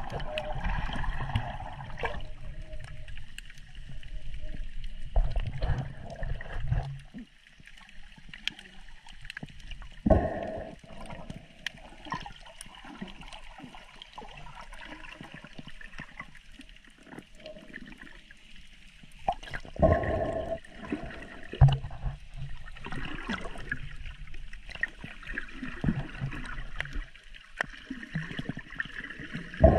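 Seawater sloshing and gurgling around the camera while snorkelling, with sudden louder splashes about ten seconds in, about twenty seconds in and at the end.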